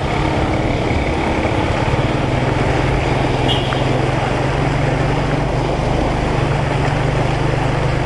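Small motorcycle (scooter) engine running steadily while the bike wades through deep floodwater, with a steady rush of water splashing and spraying off the front.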